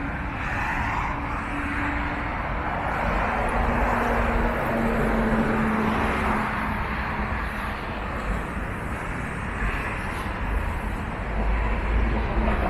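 Road traffic on a city street: cars and buses driving past in a continuous rush, with a steady low engine hum that fades and returns.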